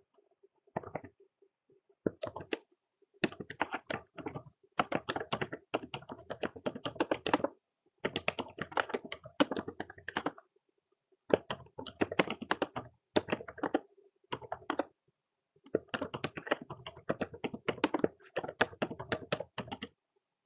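Typing on a computer keyboard, in runs of rapid keystrokes broken by brief pauses.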